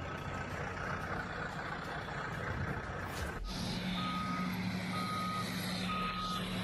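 Heavy vehicles' diesel engines running. From about three and a half seconds in, a reversing alarm beeps about once a second over a steady engine hum.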